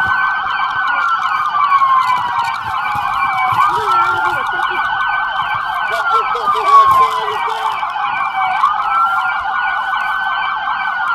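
Several police car sirens sounding together. One runs a slow wail that rises, holds and falls about every four seconds, over other sirens sweeping rapidly up and down.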